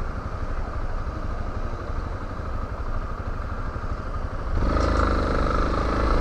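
Yamaha Lander 250 single-cylinder motorcycle engine idling at a standstill. About four and a half seconds in it gets louder and steadier as the throttle is opened to pull away.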